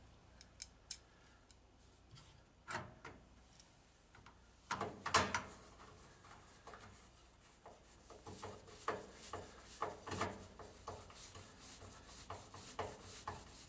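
Light clicks and knocks of a vending machine rotor motor and gearbox being put back together and turned by hand. A louder cluster of knocks comes about five seconds in, and a run of small ticks fills the last few seconds.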